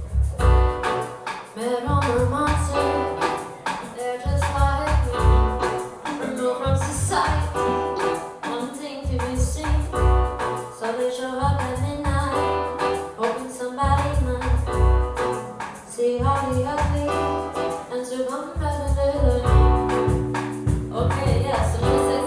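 A singer singing a song with a live band: a sung melody over heavy bass and drums, run through a sound check.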